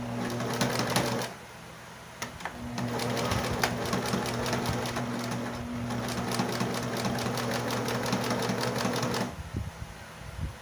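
Domestic electric sewing machine stitching through cotton fabric: a short run of about a second, a brief stop, then a steady run of about seven seconds with rapid needle clicks over the motor hum, stopping about a second before the end, followed by a few light clicks.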